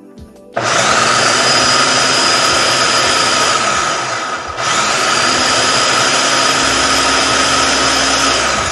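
Electric food processor motor running at full speed, puréeing banana, strawberries, cottage cheese and honey into a smooth paste. It starts suddenly, slows briefly about four seconds in, then picks up again at once and runs on.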